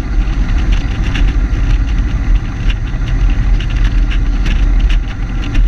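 Car engine running with road noise while cruising, picked up by a hood-mounted camera, with irregular wind buffeting on the microphone.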